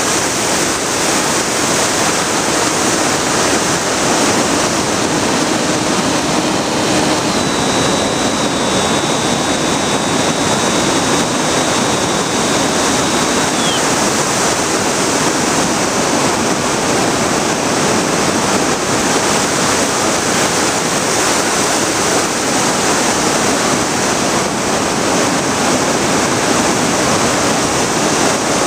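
Steady rushing wind noise on the onboard camera of a Bixler FPV plane in flight, with propeller noise mixed in. A thin high whine sounds from about 6 to 14 seconds in, steps slightly lower and then cuts off with a short drop in pitch.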